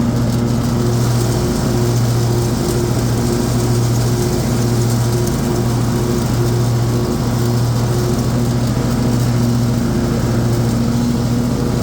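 Husqvarna RZ5424 zero-turn mower's 24 hp Kohler engine running steadily with the three-blade 54-inch deck engaged while the mower cuts grass.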